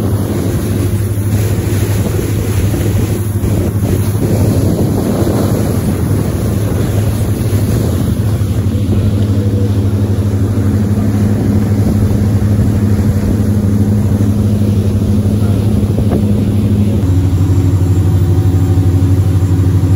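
Small motorboat's engine running steadily underway, a low drone with the rush of water along the hull. The engine note shifts slightly near the end.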